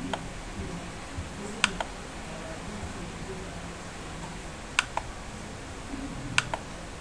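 Computer mouse clicking: sharp single clicks in close pairs every couple of seconds, over a faint low room hum.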